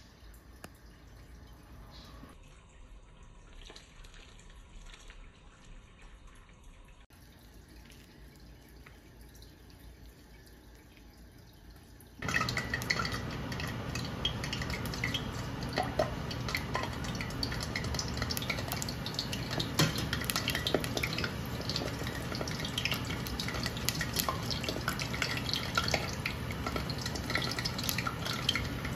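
Spoonfuls of batter deep-frying in hot oil in a stainless steel pot, sizzling and crackling steadily. The sizzle starts suddenly about twelve seconds in; before that there is only a faint low sound.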